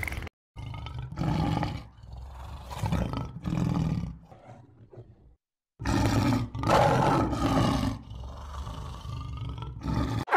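A large animal's deep calls, several in a row, with a break of about a second in the middle.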